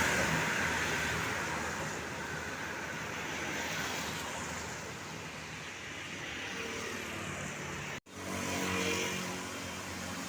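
Roadside traffic: a vehicle that has just passed fades away, leaving steady road noise. The sound drops out for an instant about eight seconds in, then the traffic noise resumes.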